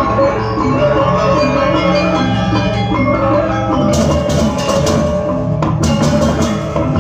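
Balinese gamelan ensemble playing in the bebonangan style: dense interlocking of ringing gong-chimes and metallophones. About four seconds in, sharp crashing strokes and drums join in.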